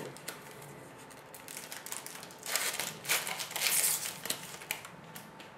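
A hockey card pack wrapper being torn open and crinkled by hand. Loud rustling bursts come about two and a half to four and a half seconds in, with a few light clicks before them.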